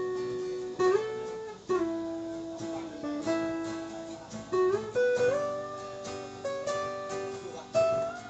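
Guitar playing a melodic solo break: single picked notes that ring and fade, some sliding up or down into the next pitch.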